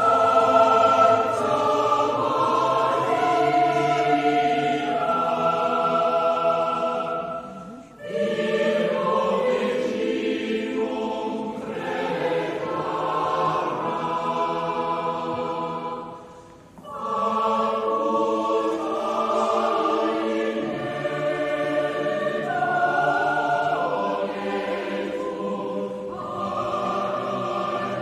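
Background music: a choir singing slow, sustained chords in long phrases, with two short pauses between phrases.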